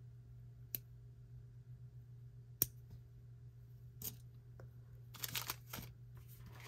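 Small pieces of jewelry handled by hand: a few single light clicks, then a short rustling clatter about five seconds in, over a low steady hum.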